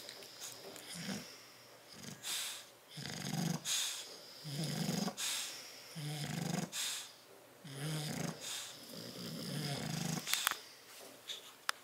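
Bulldog snoring in a steady rhythm, a snore in and out about every second. There are a couple of sharp clicks near the end.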